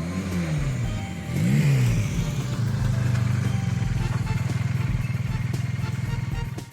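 Motorcycle engine revving twice, then running at a steady pitch, cutting off abruptly near the end.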